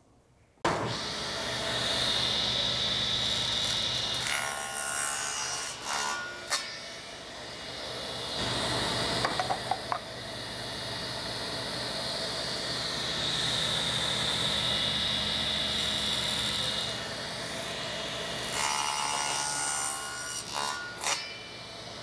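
Table saw running with its blade tilted to 10 degrees, bevel-cutting solid cedar boards: a steady high whine from the spinning blade, louder and harsher as the wood is fed through, about four seconds in and again near the end.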